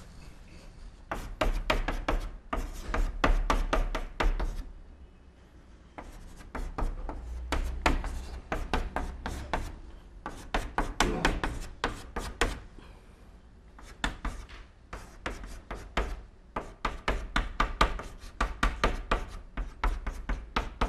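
Chalk writing on a blackboard: runs of quick taps and scrapes as characters are written, broken by short pauses between runs.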